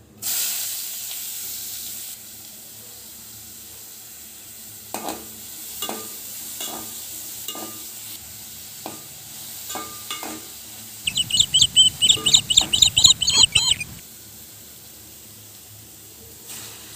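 Chopped onions hitting hot oil in a pot, with a sharp sizzle at first that settles into a steady sizzle, and clinks of a perforated metal ladle as they are stirred. About eleven seconds in, a loud run of rapid high chirps lasts about three seconds.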